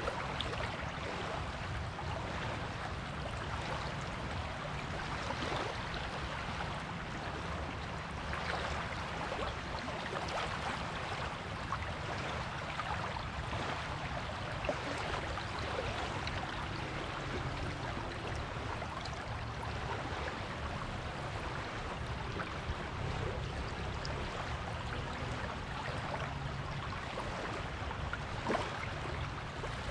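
Surf washing on a beach: a steady hiss of waves over a constant low rumble, with a brief sharp click near the end.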